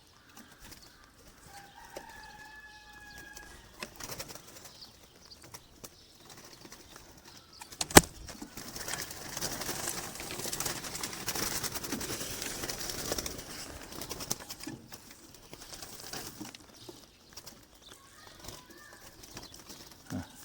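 A short bird call about two seconds in. Then a single loud sharp snap about eight seconds in, followed by about five seconds of pigeon wings flapping that die down.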